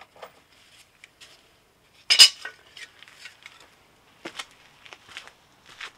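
Loose metal parts and hand tools clinking and clanking as they are handled, with one loud metallic clank about two seconds in and a few lighter clinks later.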